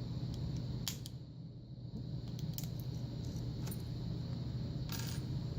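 Small metallic clicks and taps of tools working on a disassembled Kwikset lock cylinder, prying at the top of a pin chamber to free a pin stuck by a spring caught in its serrations, with a short rattle near the end. A steady low hum runs underneath.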